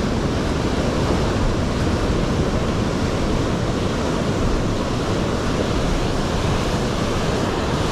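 Steady rushing noise of sea surf, with wind on the microphone.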